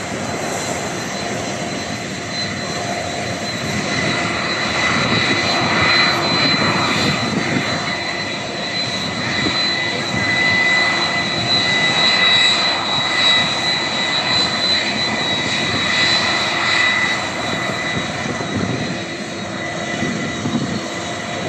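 An airliner's engines are heard as a broad roar with a steady high whine. It grows louder about four seconds in and eases back down after about seventeen seconds.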